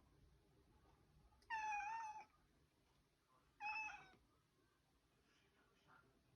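Domestic cat meowing twice: a longer call about a second and a half in, then a shorter one about two seconds later. It is demanding to be let into the fridge.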